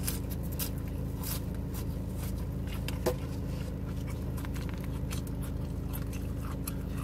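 A person chewing and biting into a sandwich close to the microphone: scattered small clicks and crackles, with a sharper click about three seconds in. Under it runs a steady low hum inside the car.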